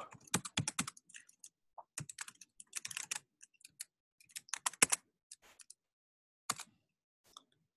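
Typing on a computer keyboard in short bursts of key clicks, the last one a single keystroke about two-thirds of the way in.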